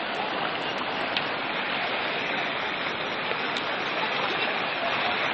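Steady noise of running water, a continuous even rush.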